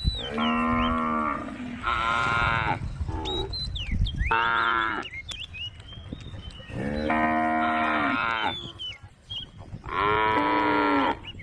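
Cows mooing: about five long, drawn-out calls, one after another with short pauses between them, the sound of cows calling to the herd.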